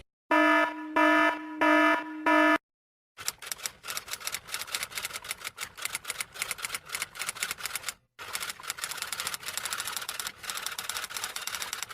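A buzzing electronic alarm tone pulsing four times, then a long run of rapid mechanical clicking like a typewriter clattering, pausing briefly about eight seconds in.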